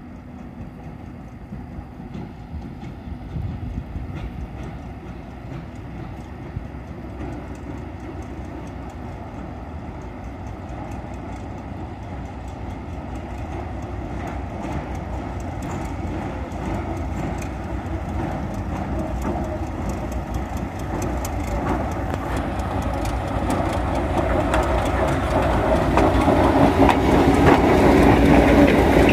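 Arcade & Attica Railroad diesel locomotive No. 113 approaching and passing close by. The sound of its engine and wheels on the rails grows steadily louder, with clicking from the wheels that builds up near the end.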